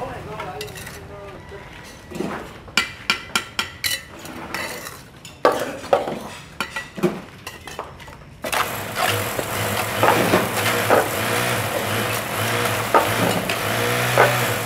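Steel trowel scraping wet mortar in a plastic tub and tapping hollow clay bricks into the mortar bed, a run of sharp knocks and scrapes. About eight seconds in, a steady low hum comes in underneath and carries on.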